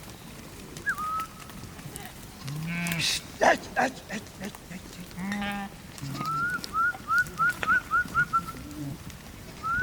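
Livestock in a sheep herd calling: two low, drawn-out bleats or moos. A bird chirps once early and then gives a quick series of rising chirps, with a few sharp knocks in between.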